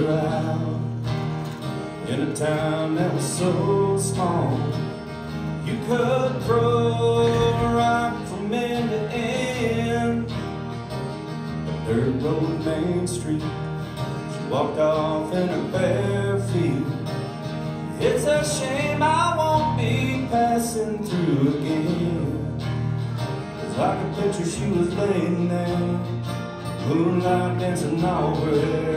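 Two acoustic guitars strummed and picked together while a man sings a song.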